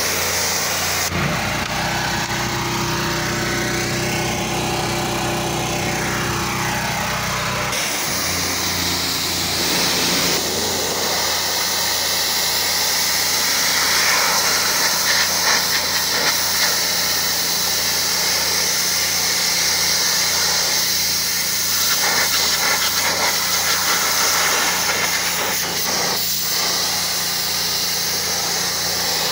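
Engine-driven pressure washer running steadily while high-pressure water sprays onto concrete with a strong hiss. The engine's tone shifts between about one and eight seconds in.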